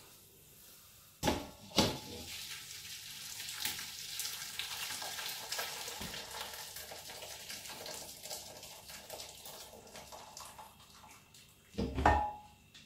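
Soup liquid poured from one stainless steel pot into another: two metal clanks of the pots near the start, then a steady pouring and splashing for about nine seconds, and another knock of the pots near the end.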